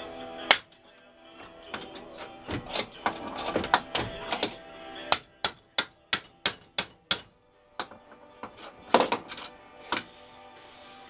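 Hammer blows on a workpiece clamped in a bench vise: a few scattered strikes, then a quick run of about eight evenly spaced blows in the middle, and a couple more near the end.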